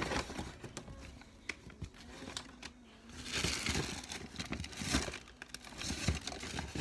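Irregular crinkling and rustling with scattered small clicks, fainter at first and louder from about three seconds in.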